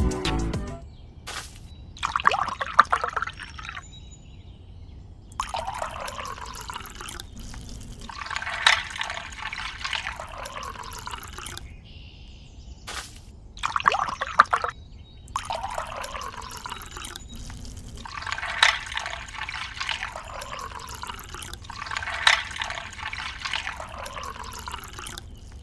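Water poured from a small toy watering can, trickling and splashing in repeated bursts a few seconds long with short pauses between.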